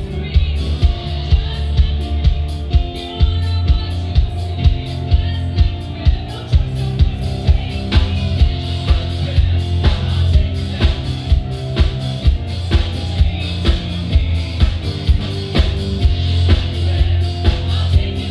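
Live band music played loud through stage speakers: a steady drum beat of about two beats a second over a heavy bass line, with guitar and a singing voice.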